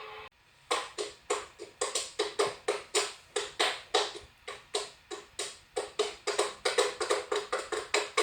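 Emergency-alert-style electronic tones. A steady alert tone cuts off just after the start, then a rapid run of short pitched beeps follows, about three or four a second, each starting sharply and fading quickly.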